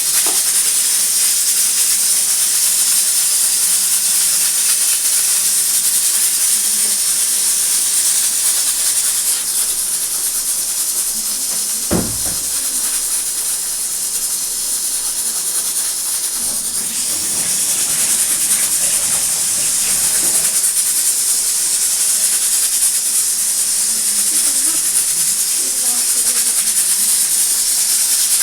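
Pressure cooker venting steam through its whistle weight in a long, steady, high hiss, with one sharp knock about twelve seconds in.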